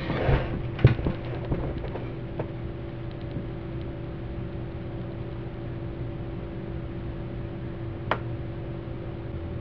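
A steady low hum of room tone. There are a few small clicks and taps in the first two seconds and one sharp click about eight seconds in.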